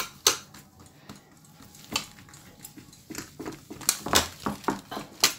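Hands pressing pizza dough out into a metal nonstick baking pan: scattered light knocks and clinks, the pan and the cook's jewellery against it. They come more often in the second half.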